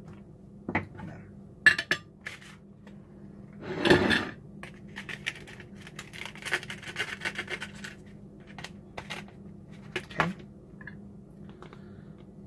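Metal cutlery clinking and knocking against plates, with a louder clatter about four seconds in and a run of scraping a little after the middle as chicken is scraped off a paper plate with a fork and knife.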